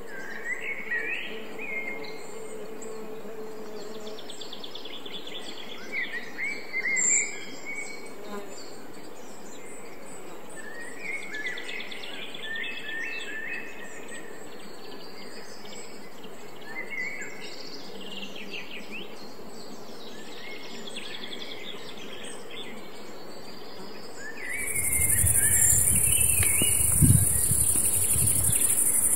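Outdoor nature ambience of birds calling with short chirps and trills. Near the end, a loud steady high-pitched insect chirring sets in over a low rumble.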